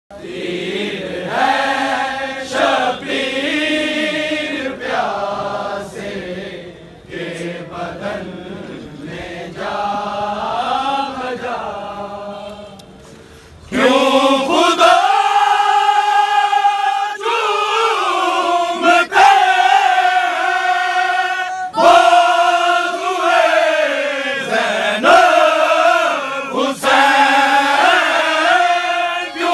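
A group of men chanting a noha, a Shia lament, together as a choir. About 14 seconds in it jumps to a louder, fuller recording of the group chanting.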